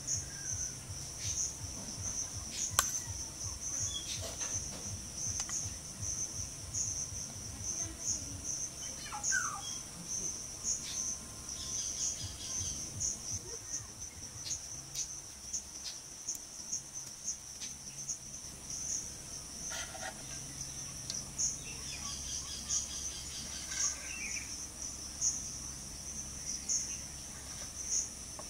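Insects chirping in a steady, high, rapidly pulsing trill, with scattered soft taps and clicks of hands and a spoon handling food.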